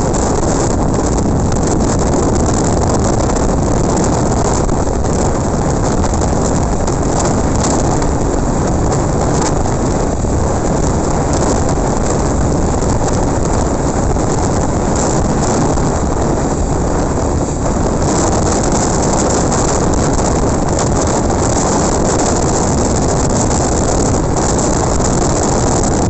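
Steady wind rush over the microphone and road noise while riding a motorcycle, with no distinct engine note standing out.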